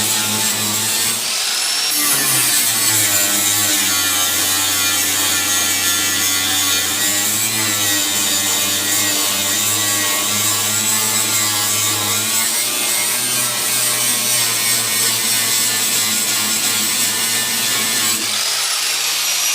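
Angle grinder with a Harbor Freight 60-grit flap wheel grinding down MIG welds on a steel patch panel: a steady, loud grinding rasp over a high motor whine. The whine's pitch shifts about two seconds in and again near the end. The welds grind down easily.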